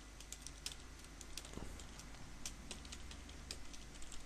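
Computer keyboard typing: faint, irregular keystrokes, about three a second.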